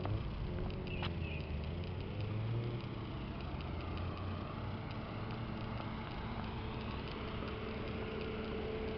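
A car engine running steadily over a low street background noise, with a held hum that grows plainer near the end.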